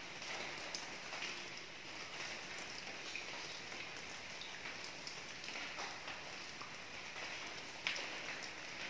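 Steady rain falling, with single drops hitting close by now and then and one sharper drop strike near the end.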